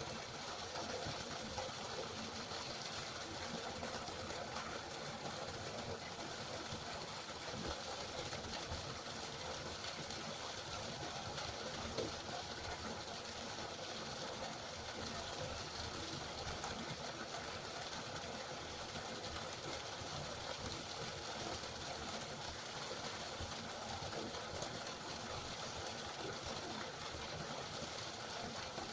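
River water flowing, a steady, even rushing of water.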